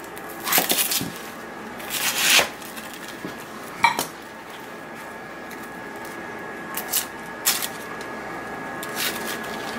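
Kitchen knife cutting through a whole onion onto a cutting board: a few knocks and crunches in the first couple of seconds and a sharp click about four seconds in. Then softer crackles as the dry onion skin is peeled off by hand.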